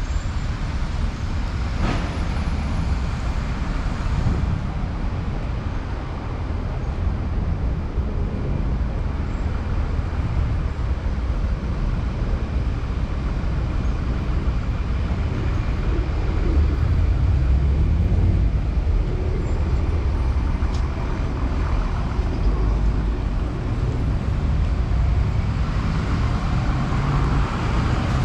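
Street traffic passing: a steady low rumble of vehicle engines and tyres.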